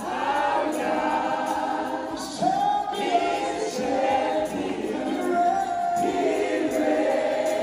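Worship team and congregation singing a gospel worship song together, many voices with long held notes.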